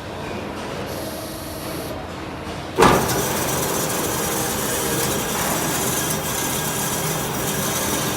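Automatic horizontal metal-cutting band saw running with a steady mechanical noise. A little under three seconds in there is a sharp knock, and the machine then runs on steadily and louder.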